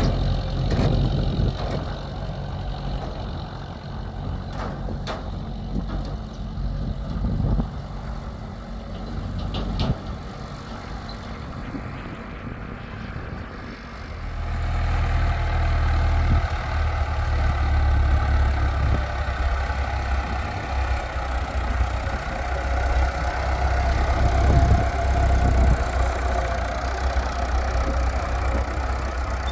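A heavy engine running steadily, with a few sharp knocks in the first half; about halfway through it becomes louder and settles into a deep, steady hum.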